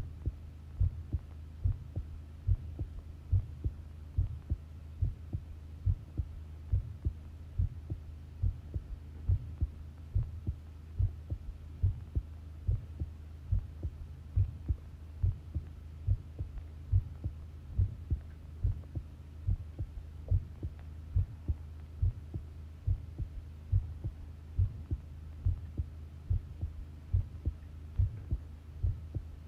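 Human heartbeat recorded close up, beating steadily, each beat a low double thud (lub-dub). A steady low hum lies underneath.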